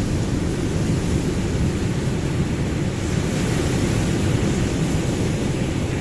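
Ocean surf: a continuous rushing wash of waves, swelling a little in the middle.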